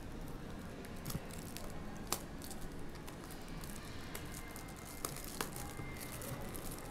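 Clear plastic shrink-wrap being torn and peeled off a cardboard trading-card box, crinkling with scattered sharp little crackles and clicks.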